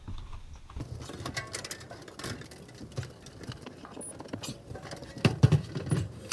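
Handling noise of a microwave oven being lifted and slid into its cabinet opening: irregular scraping, rustling and knocks, with a cluster of louder thumps a little after five seconds in as the oven goes into place.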